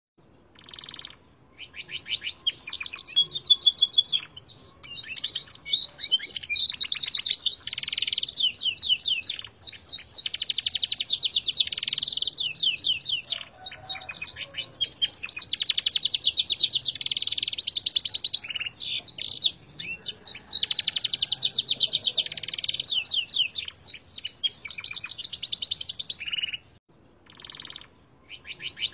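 Gloster canary singing long, unbroken phrases of fast high trills and chirps, a song mastered from red siskin recordings. The song starts about a second and a half in and breaks off briefly near the end.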